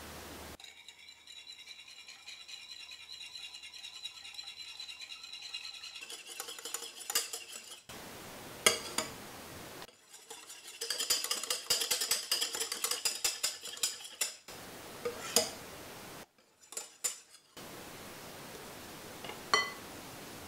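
Cream being whipped in a glass bowl: a steady high whir for the first few seconds, then a wire whisk rapidly clicking and scraping against the glass, with a few single sharp clinks of metal on glass.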